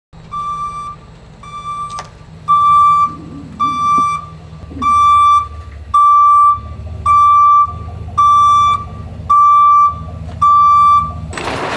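Box truck's reversing alarm beeping about once a second as the truck backs up, with its engine running low underneath.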